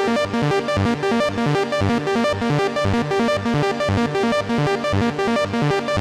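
Behringer MonoPoly analog synthesizer playing a fast repeating arpeggio, each note sounded on a different oscillator in Poly mode, with cross-modulation and sync between the oscillators giving rhythmic, modular-style changes in tone as the knobs are turned.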